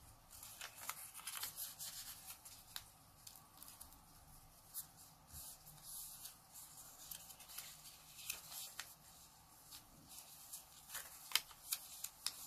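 Origami colour paper being folded and creased by hand: faint, scattered crisp crackles and rustles as the paper is folded, pressed flat and unfolded again to mark crease lines.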